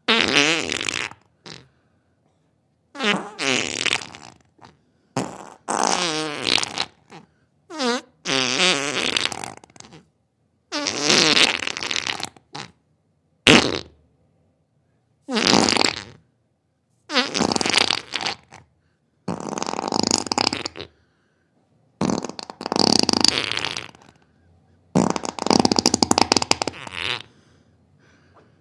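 A series of about a dozen fart sounds, each lasting one to two seconds, some with a wavering pitch and some more spluttery, separated by short silences.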